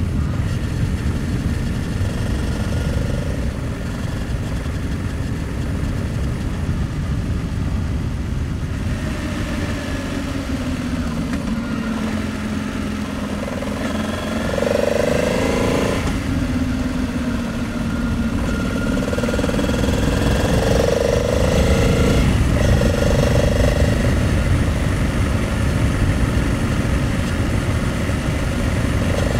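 Honda Transalp 700's V-twin engine heard from on board while riding, under a steady rumble of wind. The engine note rises and then drops back sharply a few times, mostly in the middle, as the bike accelerates and eases off.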